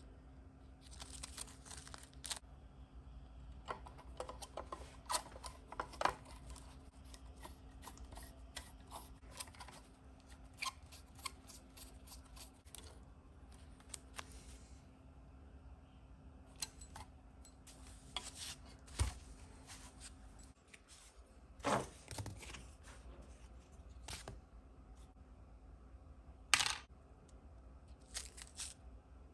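Small kit parts and tools being handled on a workbench: scattered light clicks and taps, with short bursts of rustling. A faint low hum runs underneath and stops about two-thirds of the way through.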